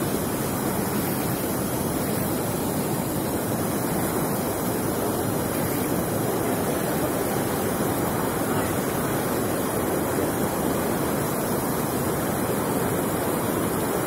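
Fast river current rushing steadily over rocks. It is an even, unbroken sound of a strong flow of water.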